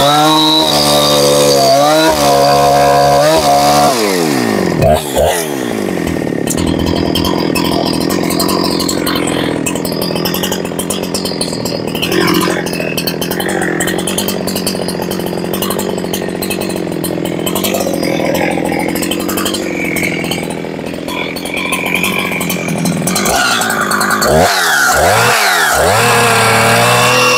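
Husqvarna 372XP 70 cc two-stroke chainsaw running at high revs for about four seconds, then dropping back to a lower, rougher running for most of the stretch. Near the end it is revved up and down several times.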